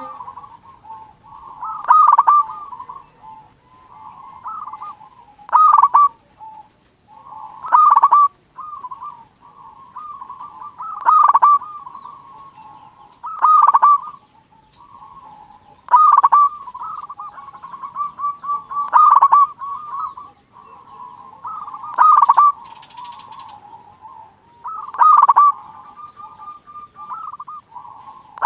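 Zebra dove (perkutut) singing: a loud cooing phrase about every two and a half to three seconds, with softer cooing notes in between.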